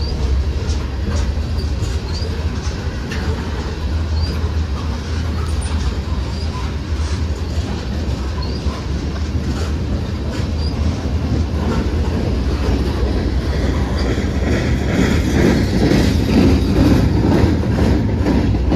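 Freight train rolling past with a steady low rumble and its wheels clicking over the rail joints, growing louder near the end.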